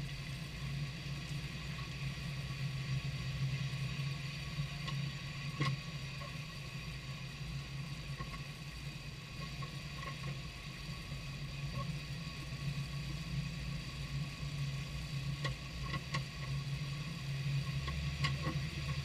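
Jeep Wrangler JK driving slowly, a steady low drone of engine and tyres under the rear axle, with a few short metallic knocks about five seconds in and again near the end. The clunks come from the rear sway bar link, its bolt moving in a mounting hole worn oval.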